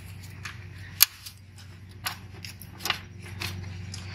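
Sharp metallic clicks and clinks of a tension spring being worked off its bracket on a lawn mower's blade pulley assembly, the loudest about a second in, then a few lighter ones.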